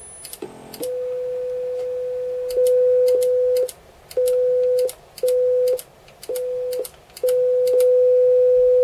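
A steady 500 Hz sine test tone from the Amiga 4000's Paula sound chip, cutting in and out about five times as the audio channels are switched on and off, louder whenever two channels play together. Each switch comes with a sharp click. A faint high 10 kHz square-wave tone sounds briefly at the very start.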